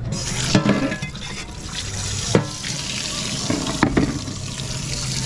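Water running and splashing, switching on suddenly, with a couple of sharp knocks about two and a half and four seconds in. It is the rinse water for cleaning freshly caught mangrove snappers.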